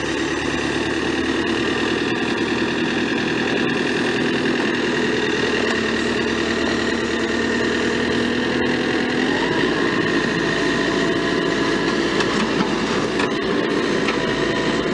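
JCB 3CX backhoe loader's diesel engine running steadily, its note shifting about nine seconds in.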